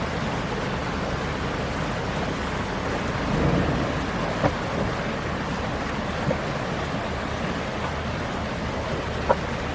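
Steady rushing noise with a faint low engine hum underneath and a few small knocks.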